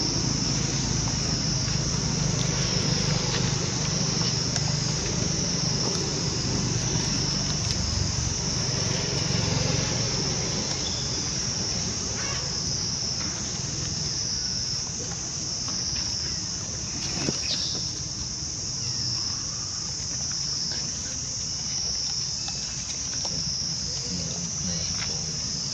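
Steady high-pitched insect chorus, swelling and fading in slow waves. A low rumble sits under it for the first half.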